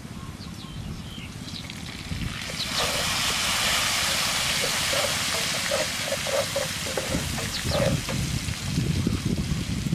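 Chopped chili and garlic sizzling in hot oil in a frying pan, the sizzle swelling louder about three seconds in. A wooden spatula taps and scrapes the pan several times.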